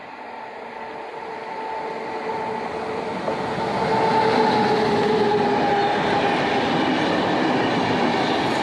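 Express train hauled by a WAP7 electric locomotive approaching and passing, the rumble of the train growing louder over the first four seconds and then holding at full volume, with a faint whine that dips slightly in pitch as it goes by.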